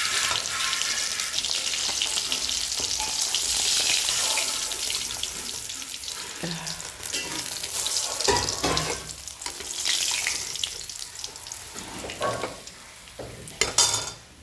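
Food sizzling as it fries in hot oil in a pan, loudest in the first half. A few knocks and scrapes of a utensil in the pan come around the middle and near the end.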